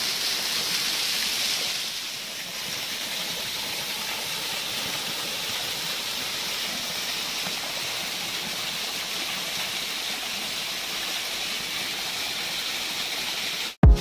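Waterfall streams falling down a rock face into a pool: a steady rushing hiss of water.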